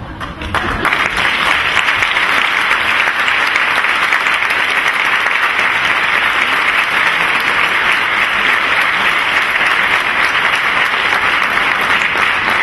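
Theatre audience applauding steadily, breaking out right as the music of a stage number stops, about half a second in.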